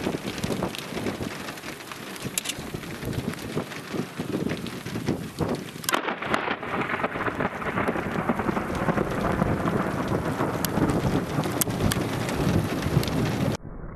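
Rain falling steadily, with drops ticking on the microphone. About six seconds in comes a sudden sharp thunderclap from a close lightning strike, followed by loud rolling thunder.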